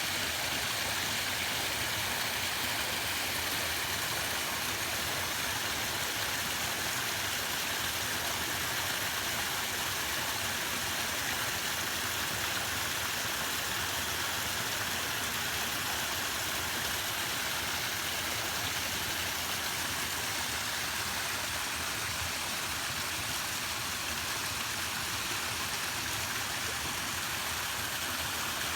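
Small waterfall: a steady rush of falling water, even and unbroken, with a bright hiss over a low rumble.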